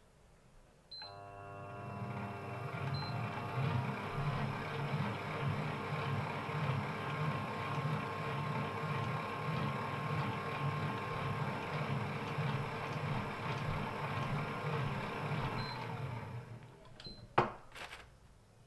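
Commercial planetary stand mixer: a control-panel beep, then the motor and gearbox start about a second in and run steadily with a regular low throb from the turning beater, before spinning down near the end. A single sharp knock follows just after it stops.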